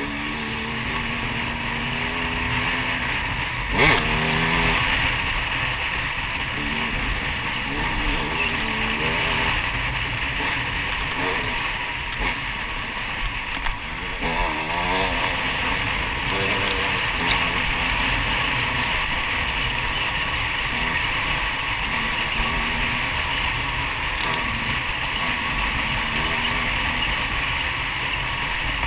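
Dirt bike engine running on a rough woods trail, its revs rising and falling as the rider works the throttle, under steady wind and riding noise. One sharp knock about four seconds in.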